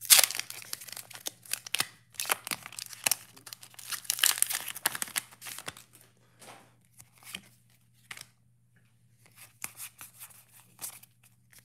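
A foil booster-pack wrapper (Pokémon Champion's Path) being torn open and crinkled, loudest in the first second and busy for about six seconds. It then gives way to softer, scattered rustles and light clicks as the trading cards are pulled out and fanned through the hands.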